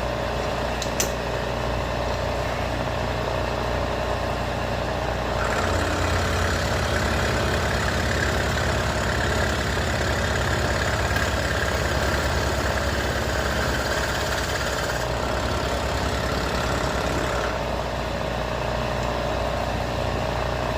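Bridgeport vertical milling machine running, its end mill cutting out stripped chain-adjuster threads in a motorcycle swingarm. The steady motor hum is joined about a quarter of the way in by a louder, brighter cutting sound, which eases off about three-quarters in and picks up again near the end. A single click sounds about a second in.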